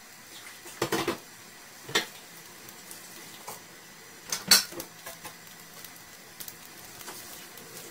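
Kitchenware clattering: three sharp knocks about one, two and four and a half seconds in, the last the loudest, over a faint steady sizzle of meat patties frying in a pan.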